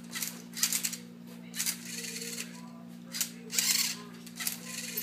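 Rubik's Cube solving robot turning the cube's faces move after move: about eight quick, irregular bursts of motor whir and plastic cube clacking over a steady low hum.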